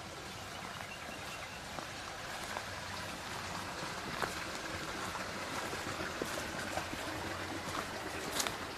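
Water running steadily, an even rushing that grows a little louder, with a few light clicks about four seconds in and near the end.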